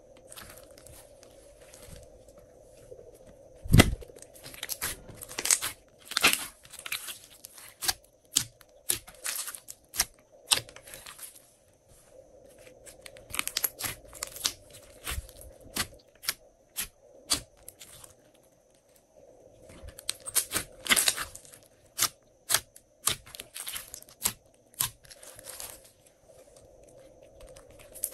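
Glossy slime being kneaded, squeezed and stretched by hand: irregular sticky crackles, pops and small tearing sounds in spells with short pauses, and one heavier thud about four seconds in.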